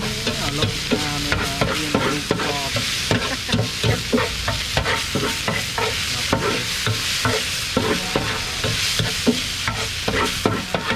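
Short noodles, bean sprouts and greens sizzling in a hot black metal pan, with a metal spatula scraping and knocking against the pan in repeated strokes, a couple each second, as they are stir-fried.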